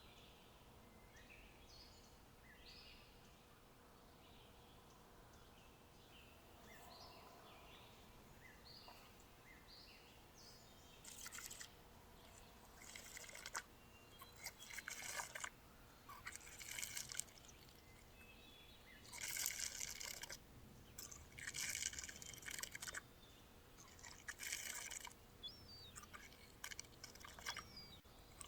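Faint bird calls, then from about eleven seconds in a series of loud crunching, tearing bursts, each about a second long with short gaps: a grazing cow pulling and cropping grass close to the microphone.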